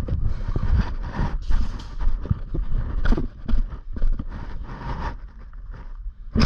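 Wind buffeting a body-worn microphone, with irregular rustling and thuds of handling and movement.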